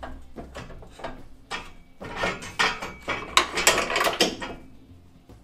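Hand wrenches working on the exhaust header bolts of a Chevy 350 small-block: metal clinks and knocks, turning into a dense run of rapid ratcheting clicks from about two seconds in.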